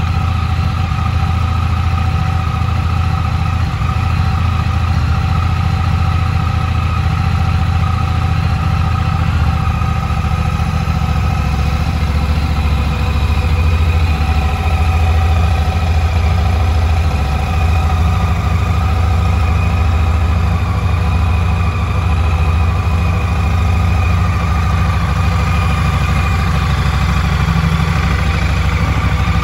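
Honda Rebel 1100's 1084 cc parallel-twin engine idling steadily.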